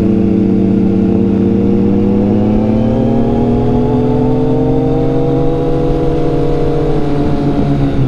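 Onboard sound of a motorcycle engine pulling steadily in gear while riding, its pitch climbing slowly as the revs build, then easing off slightly near the end.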